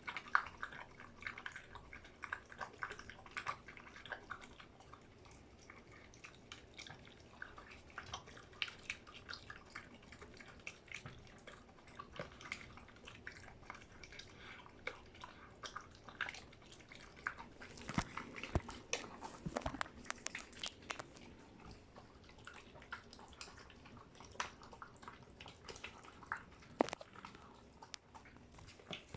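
A dog eating its food, with irregular soft crunches and clicks of chewing throughout.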